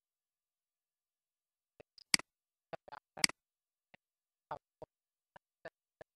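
Computer keyboard keys being typed: about a dozen separate clicks starting about two seconds in, two of them louder than the rest.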